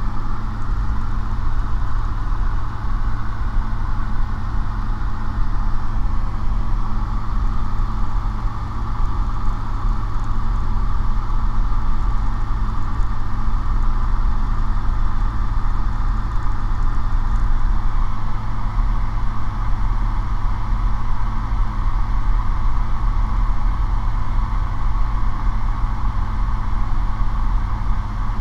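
Light aircraft's piston engine and propeller droning steadily at cruise power, a constant low hum with no change in pitch.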